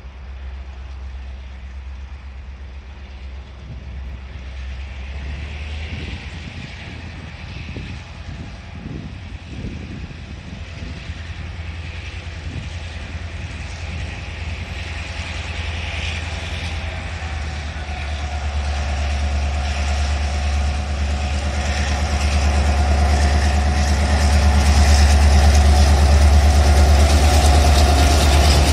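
EMD G26C diesel locomotive's two-stroke engine working as it pulls a loaded freight train away from a station. A steady low hum grows louder as the locomotive draws near, and a steady whine joins it about two-thirds of the way through.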